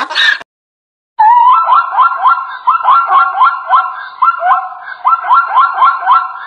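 Plains zebra calling: a fast run of barking yelps, each rising sharply in pitch, about three a second, starting after a short silence. The tail of a donkey's bray is heard in the first half second.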